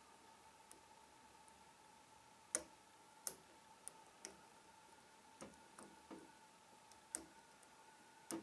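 Lock pick and tension wrench working inside a Trioving 5632 padlock during single pin picking: about nine sharp, irregular clicks of pins and core, the loudest about two and a half, three and seven seconds in.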